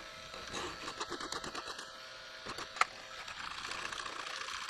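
Hand file scraping on a worn, burred steel electric-motor shaft to clean it up, in a run of quick short strokes. Partway through comes one sharp clack, then a steadier rubbing on the metal.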